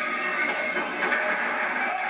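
Tournament crowd ambience: many spectators talking at once in a steady murmur, with no single voice standing out.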